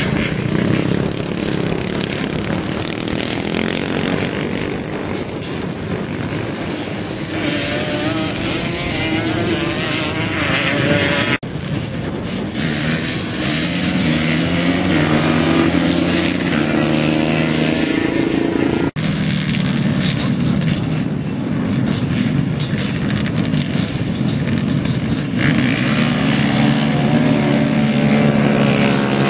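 Several Yamaha Banshee quads, with 350 cc two-stroke twin engines, revving hard and running as they race across sand, the engine pitch rising and falling as they accelerate and pass. The sound cuts out very briefly twice, about 11 and 19 seconds in.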